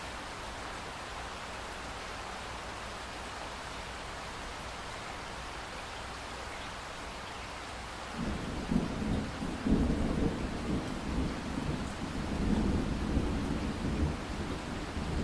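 Steady hiss of rain. About eight seconds in, a low rolling rumble of thunder builds over it and surges twice as it rolls on.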